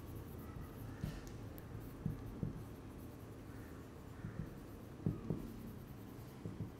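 Felt-tip marker writing on a whiteboard: faint, irregular squeaks and taps of the tip as words are written.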